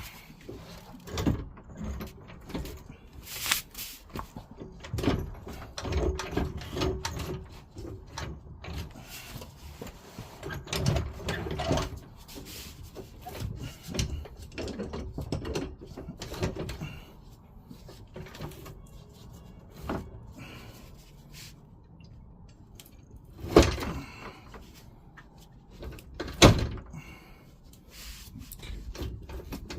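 Irregular knocks, clunks and scrapes of a floor jack being lowered and pulled out from under a car's fuel tank as the tank comes down onto wooden blocks, with two sharp, loud knocks in the second half.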